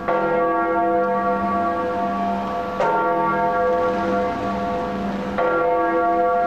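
A large tower bell tolling slowly, struck three times about two and a half seconds apart, each stroke ringing on with several overlapping tones.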